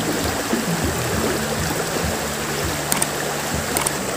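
Flowing stream water: a steady rushing hiss, with faint low steady tones beneath it.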